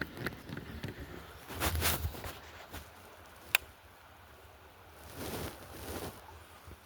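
Rustling and handling noises, with a hissy burst near the start and one sharp click about halfway through.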